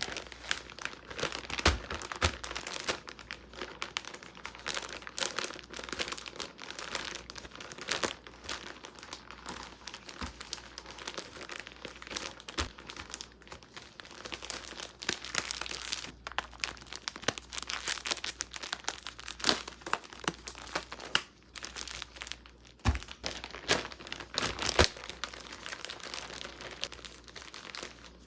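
Polypropylene spawn bags filled with damp sawdust crinkling and crackling irregularly as they are folded and rolled up tightly.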